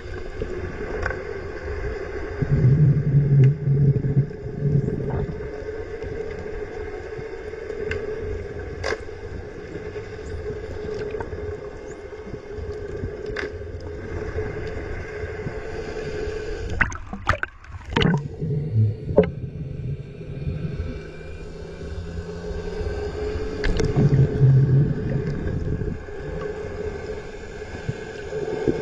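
Muffled underwater ambience picked up through a camera's waterproof housing: a steady hum over low water noise, with occasional sharp clicks and short bursts of low rumble.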